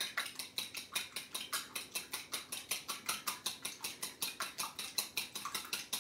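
Raw eggs being beaten by hand in a bowl, the utensil clicking against the bowl in a quick, even rhythm of about six strokes a second.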